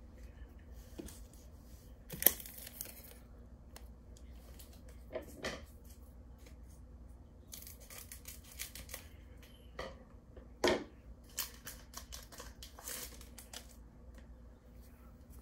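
Foil Pokémon booster pack wrapper being crinkled and torn open in irregular bursts of crackling, with a sharp click about two seconds in.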